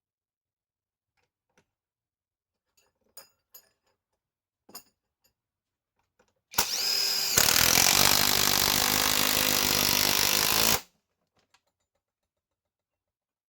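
A few light clicks of handling, then a cordless impact wrench spins up with a short rising whine and hammers steadily for about three seconds as it drives a large fastener, cutting off suddenly.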